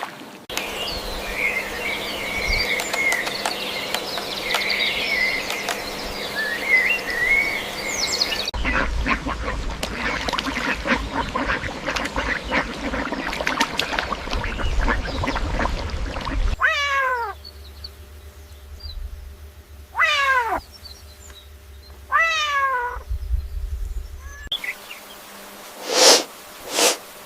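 A run of different animal calls, cut one after another: high chirping first, then about eight seconds of rapid harsh calls, then three separate calls that fall in pitch, and two short loud calls near the end.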